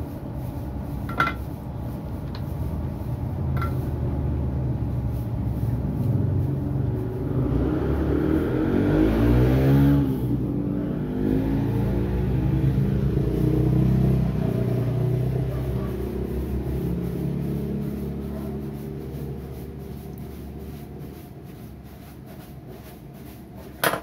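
A motor vehicle engine outside, its pitch and loudness rising to a peak about ten seconds in and then easing off and fading as it passes, with a few sharp clicks at the start and the end.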